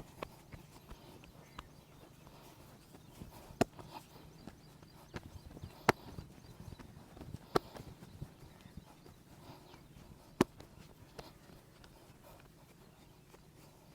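Massage hands working on the body with scattered soft taps and four loud, sharp snaps a couple of seconds apart, over a faint low hum.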